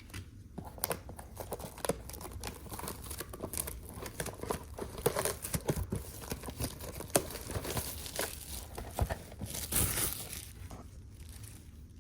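Crinkling and tearing of plastic wrapping and card-box packaging as a trading-card mega box is unwrapped and opened, a run of irregular rustles and rips that grows busiest a little before the end.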